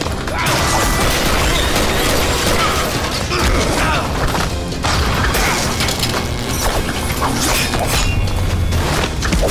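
Fight-scene soundtrack from a film: a fast run of impacts and hits layered over a music score.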